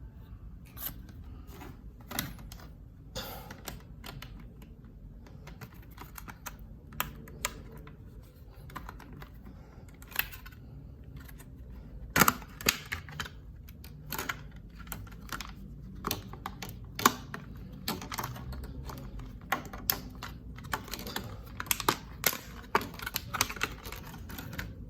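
Irregular sharp clicks and taps of a small package being handled and opened, with a brief rustle about three seconds in and a few louder clicks past the middle.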